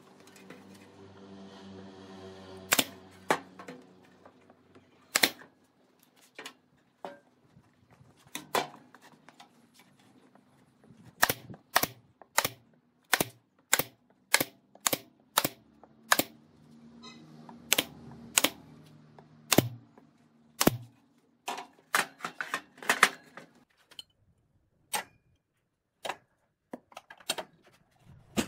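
A long run of sharp clicks and knocks, irregularly spaced and sometimes in quick runs, from work on a plywood box. There is a low hum in the first few seconds.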